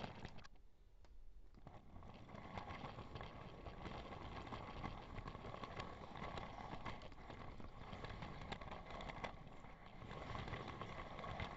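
3D-printed plastic HO-scale train rolling along plastic track as it is pushed by hand, its wheels rattling with frequent clicks over the track, heard from a camera riding on the train.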